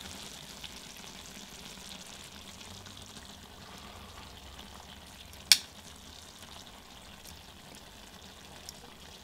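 Tteokbokki and ramen simmering in a cast iron skillet with a steady sizzle, and one sharp clink of the metal tongs about five and a half seconds in.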